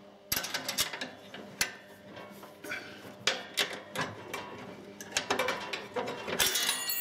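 Steel retaining pin and hairpin clip being worked loose and pulled from a lawn tractor's cutting-deck mounting: a run of irregular sharp metal clicks and scrapes.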